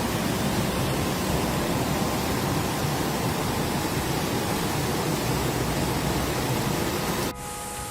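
Heavy rain pouring down in a rainstorm, a steady dense hiss. It cuts off abruptly near the end to a quieter steady background.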